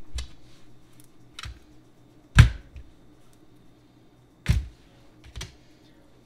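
Green plantains being handled on a plastic cutting board: a handful of short knocks and thumps, two of them louder, about two seconds apart.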